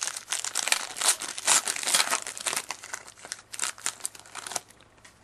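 Foil wrapper of a trading-card pack being torn open and crinkled by hand: a dense run of crinkling that stops about four and a half seconds in.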